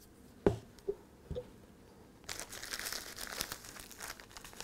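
Three knocks as a model tree in its metal clamp is set down on a plastic tray, the first the loudest. Then about two and a half seconds of dry, crinkly rustling as loose foliage material is pressed onto the tree by hand.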